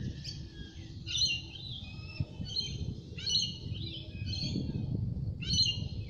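Birds singing: short, bright chirping phrases repeated about every second, over a low background rumble.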